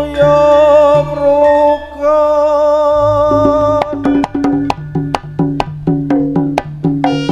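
Javanese jaranan ensemble music: a wavering held melody for the first three seconds, then rhythmic strikes of drums and tuned percussion take over, about three to four a second.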